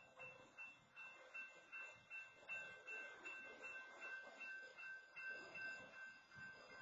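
Railroad crossing bell ringing faintly and repeatedly, about two strikes a second, at a blocked crossing.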